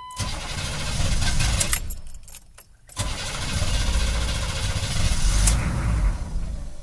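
A GM 6.2L V8 diesel being cranked to restart after it idled rough and stalled. It cranks in two tries, about two seconds and then about four.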